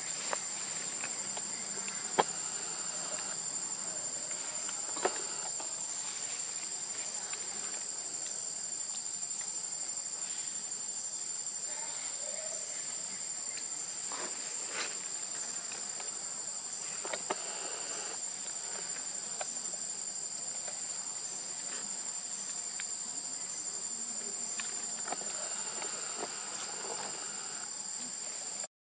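Steady, shrill insect chorus, one high drone holding without a break. A few short clicks cut through it, the sharpest about two seconds in.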